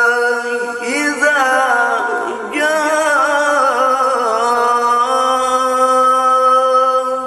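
A male qari reciting the Quran in the melodic tajwid style, unaccompanied. He holds a long note, breaks into a wavering, ornamented run about a second in that winds downward, and settles into another long held note near the end.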